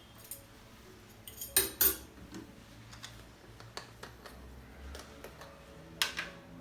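Tableware being handled: sharp clinks and knocks, two loud ones about a second and a half in, another near the end, with faint ticks between.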